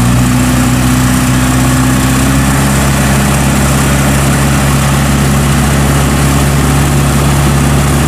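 Single-cylinder diesel engine of a homemade tracked mud carrier running steadily under load as the machine crawls through deep paddy-field mud.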